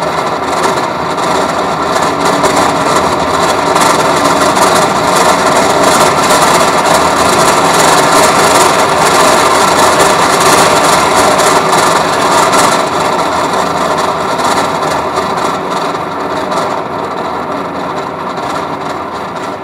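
Transducers vibrating the body of an overhead projector and sheets of transparent paper, driven from an amplifier: a dense, noisy buzz with some steady tones in it. It swells to its loudest around the middle and fades towards the end.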